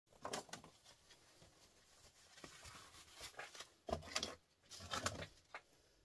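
Small plastic microswitches salvaged from microwaves clattering and rustling on a metal-topped bench as a gloved hand sorts through the pile and picks one up, in several short irregular bursts, the loudest about four and five seconds in.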